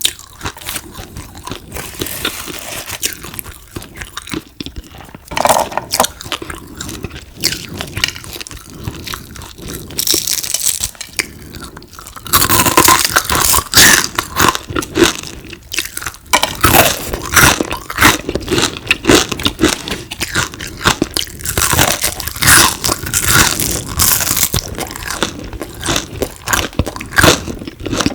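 Crunching and chewing of crispy fried frog, with dense crackling bites that get louder about halfway through.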